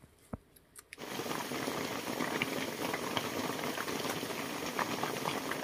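Pot of soup bubbling at a hard boil, a dense steady crackling bubbling that starts abruptly about a second in.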